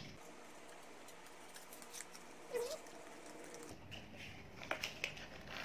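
Faint clicking and rustling as a boxed wristwatch is opened and handled, with a few sharper clicks near the end.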